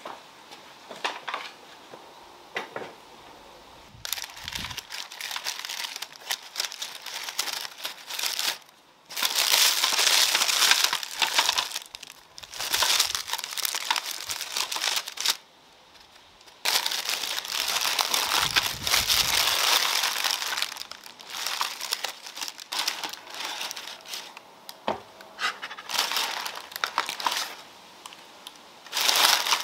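Baking parchment paper crinkling and rustling as a paper-wrapped bundle is untied and pulled open by hand, in loud stretches broken by short pauses. The first few seconds are quieter, with only a few light clicks and taps.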